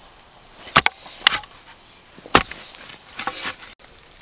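Manual post-hole digger jabbed into rocky soil: a few sharp strikes of the blades about a second apart, then a longer scrape of dirt near the end.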